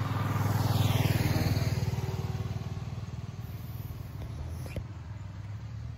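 A motor vehicle's engine passing on the road, growing louder for about the first second and a half and then fading away.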